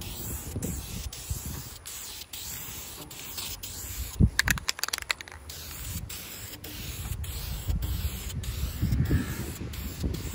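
Aerosol spray can of primer hissing as a coat is sprayed, with a brief burst of quick sharp clicks about four seconds in.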